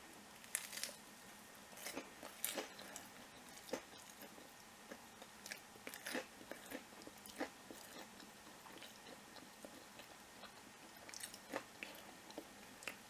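Someone biting into and chewing crispy battered tempura close to the microphone: irregular crunches and crackles of the batter.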